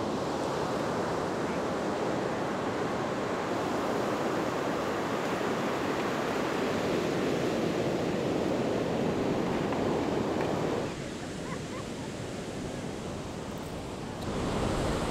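Ocean surf breaking and washing up the beach, a steady rush that drops quieter about eleven seconds in and swells again near the end.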